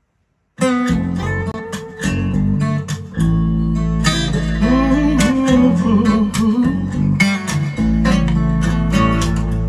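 Recorded pop song played back through a 212 tube amplifier and loudspeakers: an acoustic guitar intro with bass that starts suddenly about half a second in.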